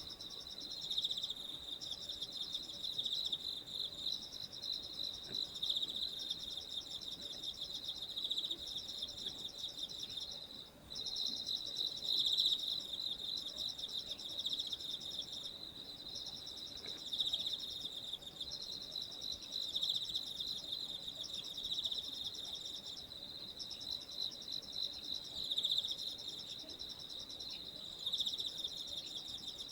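Insects trilling in a dense, continuous high-pitched chorus with pulsing rhythms layered over it, briefly dropping away about eleven seconds in.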